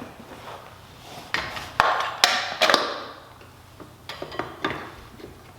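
Metal clanks and knocks of a Honda CRF70 rear wheel and its drum brake being fitted back onto the bike: a cluster of loud clanks, one ringing briefly, between about one and three seconds in, then a few lighter clicks.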